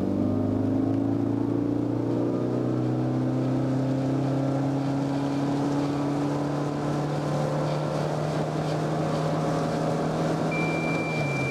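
Toyota Prius Plug-in's 1.8-litre four-cylinder petrol engine at full-throttle acceleration, heard from inside the cabin. The engine note climbs quickly at the start, then holds one steady pitch while the car gathers speed, as the hybrid's continuously variable drive keeps the revs constant, and falls away near the end. A short, high, steady beep sounds near the end.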